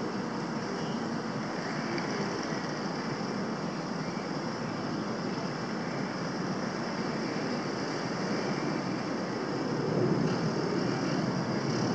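Steady rushing noise from a cruise ship's machinery with wind on the microphone, growing slightly louder about ten seconds in.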